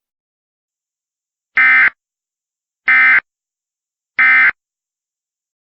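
Three short bursts of Emergency Alert System SAME data tones, each about a third of a second long and about 1.3 seconds apart: the end-of-message code that closes an EAS alert.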